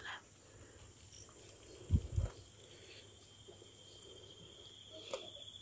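An insect, likely a cricket, trills in a steady high pitch that grows in from about halfway through and pulses evenly. Two brief low thumps about two seconds in.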